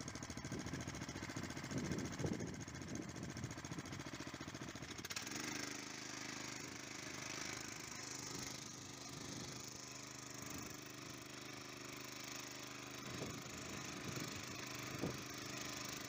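Small engine of a VARI walk-behind tractor running under load as it pulls a fork potato digger through damp, heavy soil. A fast rattle for about five seconds gives way to a steadier engine hum.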